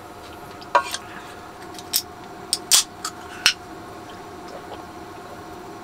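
A handful of short, sharp metallic clicks and taps: chopsticks knocking against a stainless steel pot while eating, over a steady faint hum.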